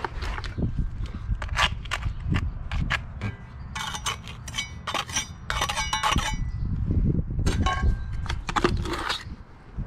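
A trowel working wet quick-setting concrete patch: a run of irregular short scrapes and clinks as the mix is pressed into a broken concrete step and more is scooped from a bucket.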